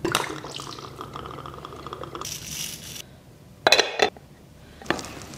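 The lid of a Staub tomato-shaped cocotte being set down with two sharp clinks, about three and a half seconds in, and a lighter click near the end. Before that there is a knock, a quick fluttering rattle and a brief hiss as ingredients are handled.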